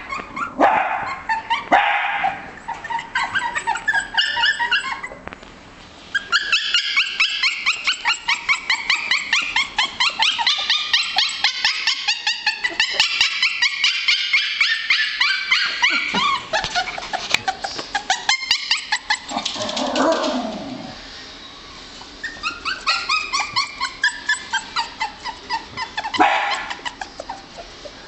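Six-week-old Scottish terrier puppies yipping and barking in rapid, high-pitched strings, many calls a second, with a couple of brief lulls.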